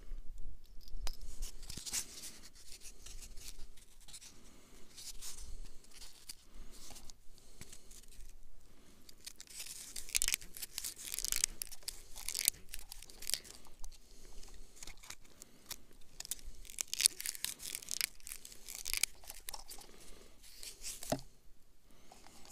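Irregular rustling, scraping and crunching from hands handling a small ice-fishing rod and a plastic bait jar on the snow. It comes in uneven bursts, busiest about halfway through and again a little later.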